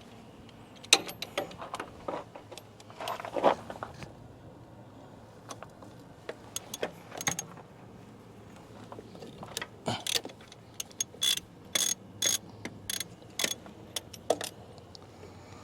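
Hand ratchet wrench clicking and tools clinking against metal as the air compressor's mounting bolts are loosened, with a run of evenly spaced ratchet strokes in the second half.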